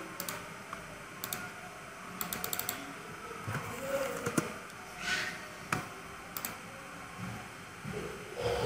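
Clicks from a computer keyboard and mouse: single scattered clicks, with a quick run of keystrokes about two seconds in.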